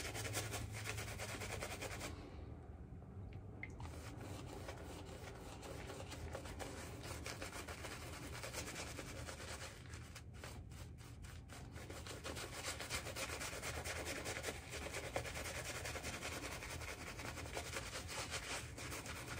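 Synthetic-knot shaving brush scrubbing shaving soap into a beard in continuous scratchy rubbing strokes. The brush is face-lathering a lather that is still super dry. There is a brief let-up about two seconds in.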